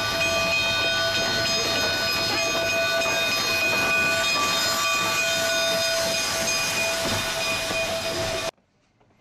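Durango & Silverton K-28 2-8-2 narrow-gauge steam locomotive No. 473 and its train rolling slowly past close by as it slows, a loud steady hiss with several held high squealing tones over the running noise. The sound cuts off abruptly near the end.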